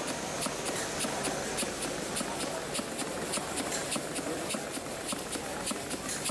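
Model beam engine running on compressed air, its exhaust puffing a short hiss about four times a second, over a steady murmur of crowd chatter.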